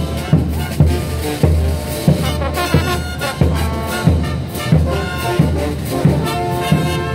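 Bolivian street brass band playing a morenada: trumpets, baritone horns and sousaphones hold sustained chords over a steady bass drum beat of about one and a half strikes a second.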